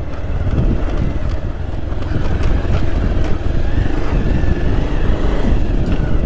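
Motorcycle engine running at low speed on a rough dirt track, with a few knocks and rattles from the bike going over bumps.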